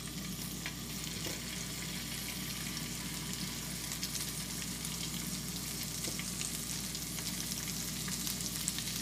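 Thin northern pikeminnow fillets frying in butter and olive oil in a hot pan: a steady sizzle with small crackles and pops, growing a little louder as more fillets go in.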